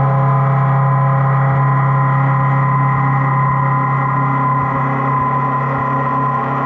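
DN Solutions Mynx 7500 machining centre milling 6Al4V titanium with an eight-flute Kennametal Harvi IV end mill at 2037 rpm and 70 inches per minute under flood coolant: a steady cutting hum of several held tones. It is the sound of a deep 10% radial roughing cut that is not working the machine too hard.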